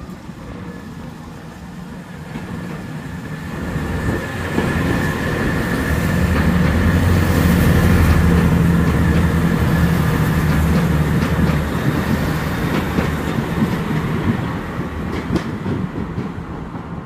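Great Western Railway class 165 diesel multiple unit pulling away and passing below. Its diesel engines grow louder to a peak around the middle, then fade as it moves off, with a few wheel clicks over the rail joints near the end.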